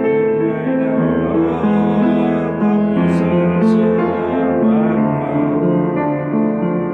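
Piano playing chords and melody, the notes changing about every half second, with two brief hissing sounds a little after three seconds in.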